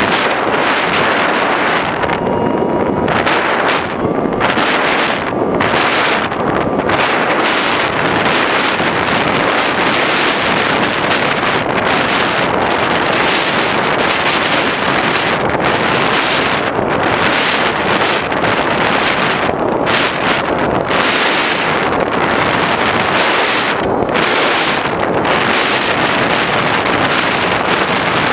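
Steady loud wind rush from airflow buffeting the GoPro's microphone on an FPV aircraft in flight.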